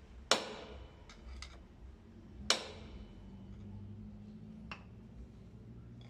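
Two sharp metal-on-metal strikes with ringing tails, about two seconds apart, plus a few lighter taps: a steel drift being struck to drive the steering-head bearing race (cup) home in a motorcycle's steering head.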